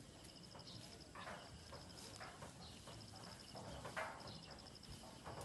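Faint outdoor ambience: a high chirping in rapid runs of about a second, repeating throughout, with a few soft scuffs and rustles as a cement mixer is pushed over rough grass.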